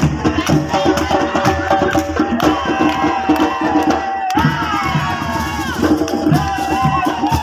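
Music with hand percussion keeping a quick, busy beat under a wavering, sustained melody.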